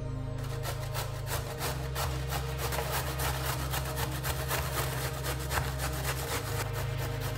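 Carrot being grated on a stainless-steel box grater: quick, repeated rasping strokes of the carrot against the steel blades, starting about half a second in.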